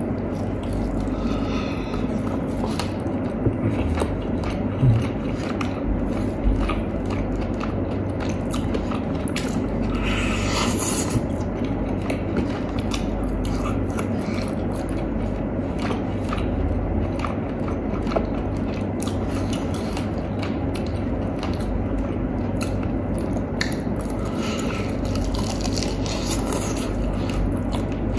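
Close-up biting and chewing of fried chicken, many small wet clicks and squishes of the mouth working, with the meat being torn apart by hand, over a steady low background hum.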